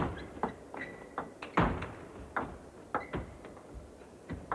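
Table tennis rally: a celluloid ball clicking sharply off the rubber-covered bats and the table top, about a dozen hits at an uneven pace, the loudest about a second and a half in.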